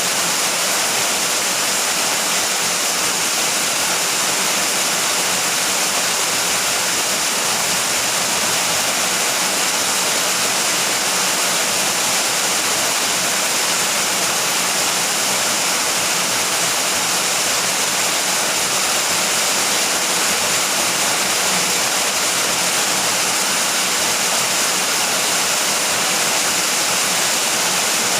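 Steady rain falling without thunder, an even, unbroken hiss of water, strongest in the high range.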